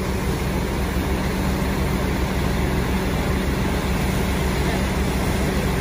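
Heavy fire-engine diesel running steadily, a constant low rumble and hum, as the pumper supplies the charged hose line.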